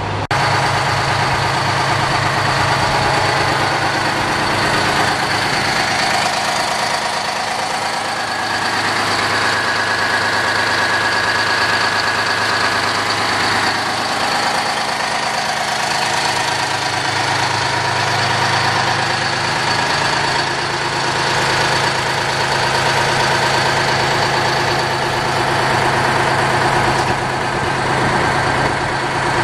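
Detroit Diesel truck engine idling steadily, heard close up at the engine. A faint thin whine rides over it for a few seconds in the middle.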